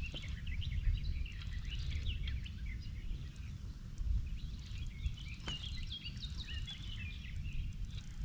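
Small birds chirping and singing in many short calls, over a steady low rumble.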